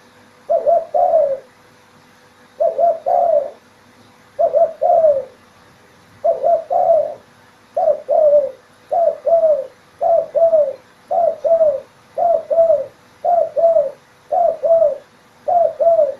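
Zebra dove (perkutut) cooing: twelve short phrases of two or three quick low coos each, repeated at a quickening pace, from about two seconds apart down to about one second apart.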